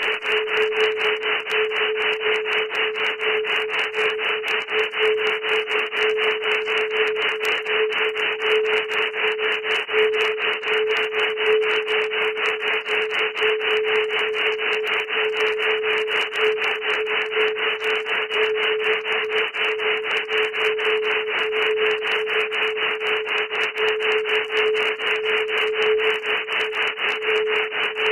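Synthetic wave-genetics audio track: one steady mid-pitched tone under a fast, even rasping hiss, unchanging throughout.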